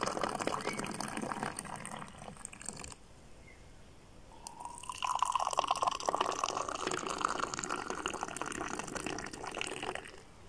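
Moroccan mint tea poured from a height out of a silver teapot into glass tea glasses: a thin stream splashing into a glass that stops about three seconds in, then a second pour from about five seconds in to near the end, rising slightly in pitch as the glass fills.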